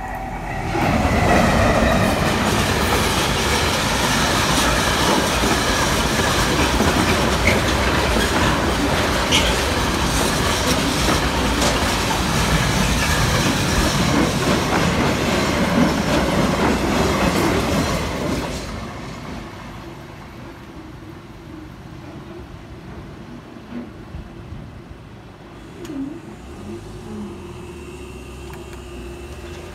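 Colas Class 70 diesel locomotive 70804 passes at speed, heading a freight train of engineering wagons, with the wheels clattering over the rail joints. The loud passing starts about a second in and dies away at about 18 seconds, leaving a much quieter background with a faint steady hum near the end.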